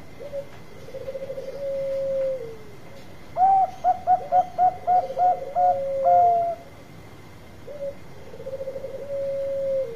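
Caged Bangkok zebra dove (perkutut) singing its cooing song: three phrases, each a quick stuttering run of notes that goes into a long held coo and drops at the end. Around the middle a louder, higher series of about eight short coos and a long final note overlaps the lower song.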